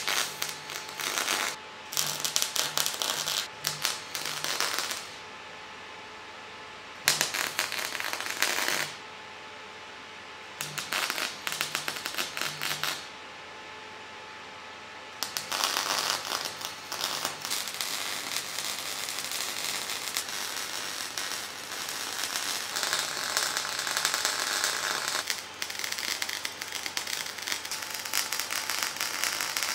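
MIG welding on steel: the welding arc crackling in several short bursts of a few seconds each, then a long steady run of crackle from about halfway through, broken briefly twice.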